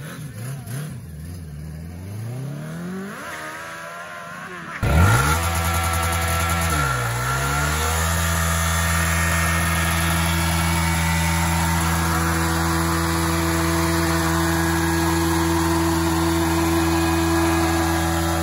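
Motorcycle engine revved up and down during a burnout. About five seconds in, a louder sport bike engine takes over: it is revved hard, dips once, then is held at a steady high rev while its rear tyre spins in a smoky burnout.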